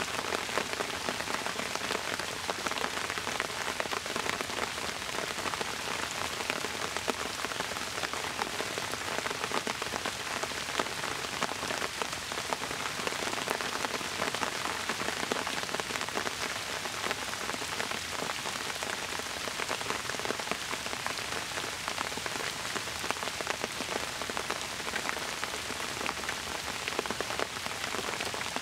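Steady rain, with many separate drops hitting close by.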